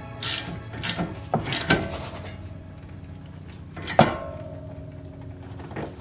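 Ratchet wrench tightening the bolts of a rear brake caliper, giving a handful of sharp, irregularly spaced clicks. The loudest comes about four seconds in.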